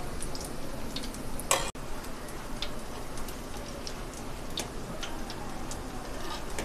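Battered green chilli pakoras deep-frying in hot ghee: a steady sizzle with scattered crackling pops, and one brief louder burst about a second and a half in.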